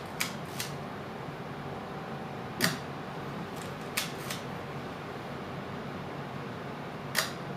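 Leica M6 TTL film rangefinder's mechanical cloth focal-plane shutter being fired at 1/60 s close to the microphone: a series of sharp clicks a second or more apart, the loudest about two and a half seconds in, over a faint steady room hum.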